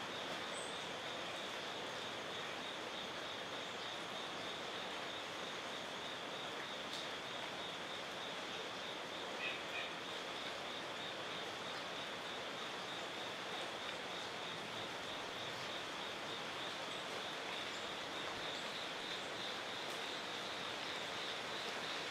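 Steady outdoor ambience: an even hiss under a high, rapidly pulsing insect chorus, with two short bird chirps about ten seconds in.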